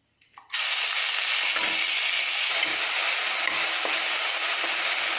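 Sliced onion frying in hot ghee in a steel kadai, a loud, steady sizzle that starts abruptly about half a second in, while a wooden spatula stirs it.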